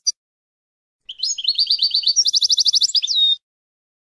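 European goldfinch singing: a short call right at the start, then about a second in a song phrase of quick repeated notes running into a fast trill and ending on a downward slurred note.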